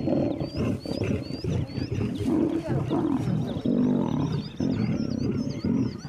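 Lions growling continuously in a squabble over beef at feeding, as the big male fights off the lionesses. High bird chirps and a short trill sound faintly over the top.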